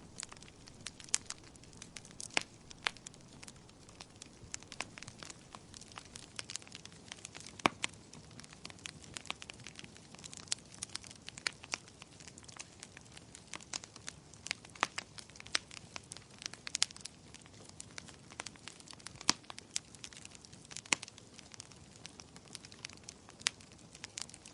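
Wood fire burning in a fireplace: irregular sharp crackles and pops, several a second, over a soft steady hiss of flame.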